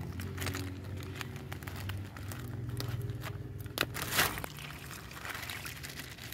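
Thin plastic bag crinkling and crackling as it is handled, sharpest about four seconds in. Near the end, stale tofu water splashes out of the bag onto the compost.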